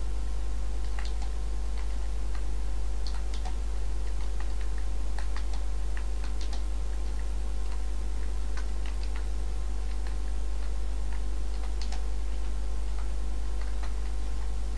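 Computer keyboard keys clicking in irregular bursts as a message is typed, over a steady low hum.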